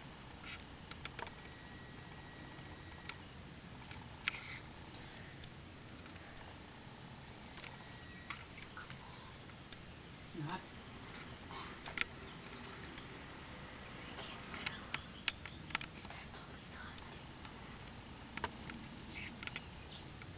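Insect chirping: short, high chirps about five a second, in runs broken by brief pauses, with a few faint clicks.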